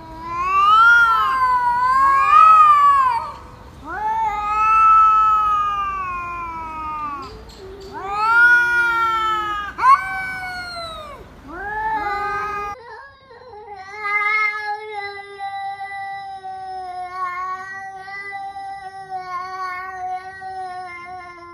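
A cat yowling in a string of loud, long-drawn meows that rise and fall. About thirteen seconds in, after a cut, a steadier, long wavering call takes over.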